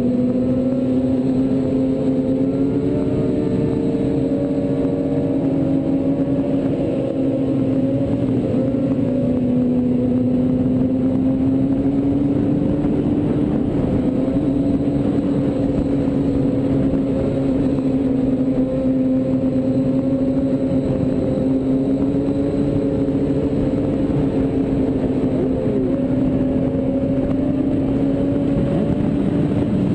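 Sport motorcycle engine running at a steady highway speed, its pitch drifting slowly up and down, over constant wind noise.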